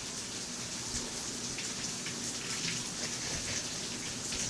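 Steady rain from a storm: an even hiss with scattered drop ticks.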